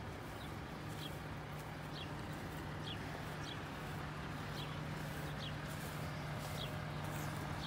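A bird chirping over and over, short falling chirps about once a second, over a steady low hum.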